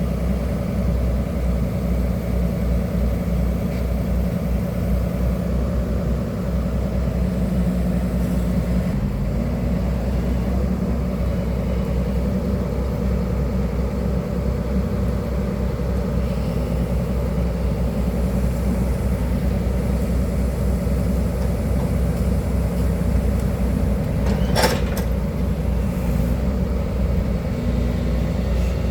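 Excavator's diesel engine running steadily with a low hum, with one sharp click about three-quarters of the way through.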